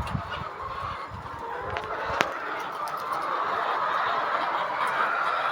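Flock of laying hens clucking together in a steady, overlapping chorus, with one sharp click about two seconds in.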